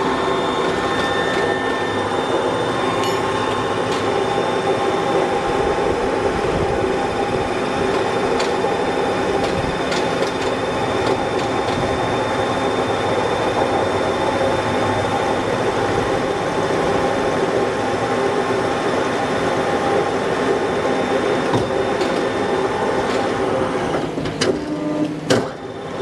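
Electric winch running: its motor and gear reducer give a steady mechanical whir with a thin high whine over it, then the running falls away near the end.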